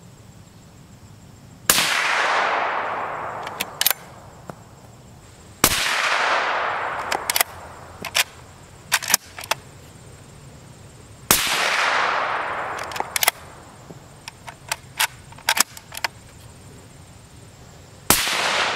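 Four suppressed shots from a .308 CZ 557 bolt-action rifle, a few seconds apart. Each is a sharp report followed by a long echo that fades and darkens over about two seconds, with lighter clicks between shots as the bolt is worked.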